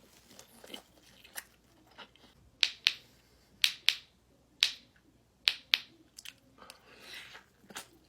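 Close-miked eating of seafood: a series of sharp crunching clicks as it is bitten and chewed, loudest in a cluster of about seven through the middle.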